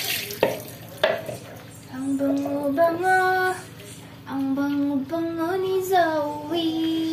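A couple of sharp knocks and splashy washing noise during dog bathing, then, from about two seconds in, a high voice singing a slow melody of long held notes.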